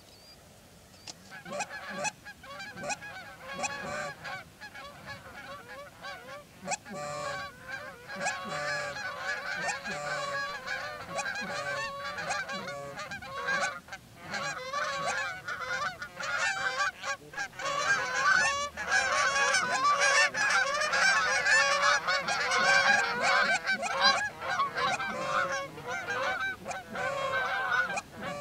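A flock of Canada geese honking, many calls overlapping, starting about a second in and growing louder past the middle as the flock flies over the pond.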